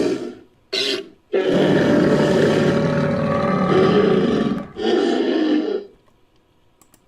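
Styracosaurus creature sound effects made from mixed animal calls: a roar tailing off, a short burst about a second in, then a long roar of about three seconds and a shorter one that ends about six seconds in.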